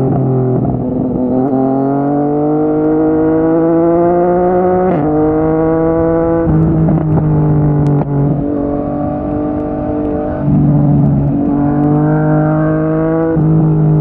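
Yamaha MT-09's three-cylinder engine through a Yoshimura R55 slip-on exhaust, under way: the note climbs steadily under throttle for about five seconds, drops sharply at an upshift, then runs fairly level with a few small throttle changes.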